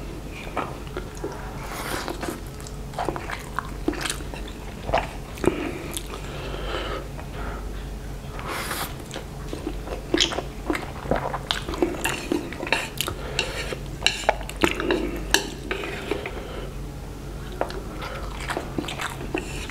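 Eating fried instant noodles: strands slurped in and chewed, with light clicks of wooden chopsticks against the plate. The short sharp clicks and mouth noises come thicker in the second half.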